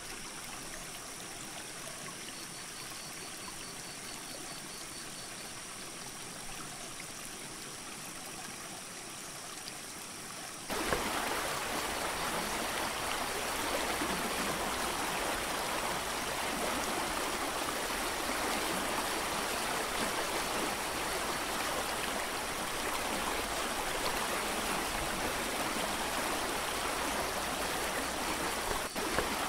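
Creek water rushing steadily. It becomes abruptly louder about a third of the way through.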